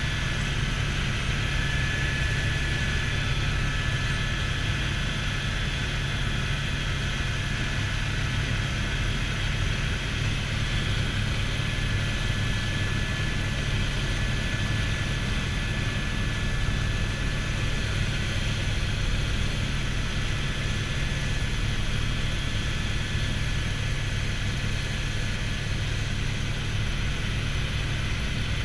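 Helicopter in flight heard from inside the cabin: a steady drone of rotor and engine with a thin, steady high whine above it.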